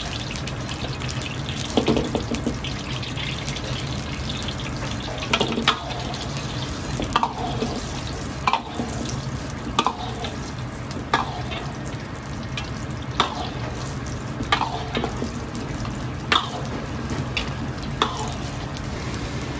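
Pumpkin slices bubbling in hot oil in an iron wok over a gas wok burner: a steady sizzling rush. A metal wok ladle scrapes and knocks against the wok about every second and a half, starting about five seconds in.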